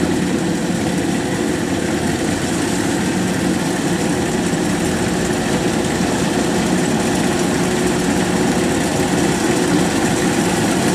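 Kubota DC93 rice combine harvester working through a rice crop: its engine and threshing machinery run steadily with a constant hum, growing slightly louder as the machine draws closer.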